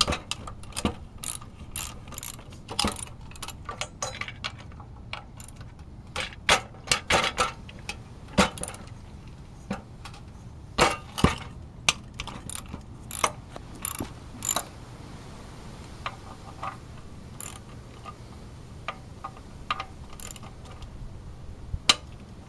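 Hand socket ratchet clicking in short, irregular runs as the side-cover bolts of a 4 hp Briggs & Stratton engine are broken loose; the clicks thin out in the second half.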